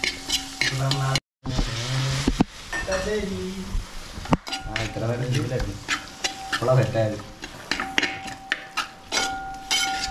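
Food sizzling in a hot pan while it is stirred, with scattered clinks and knocks of a metal spoon against the pan.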